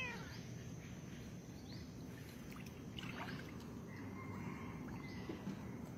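Water moving and lapping, a low steady wash, with faint short high chirps scattered through it and a brief, louder high call right at the start.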